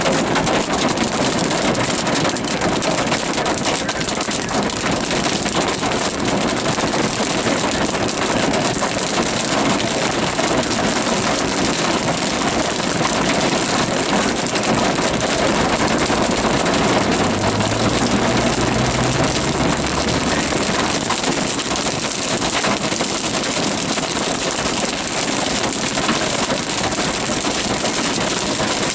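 Heavy rain and hail pelting a moving car, heard from inside the cabin as a dense, steady roar of drumming on roof and windshield over road and engine noise. A low hum rises briefly about two-thirds of the way through.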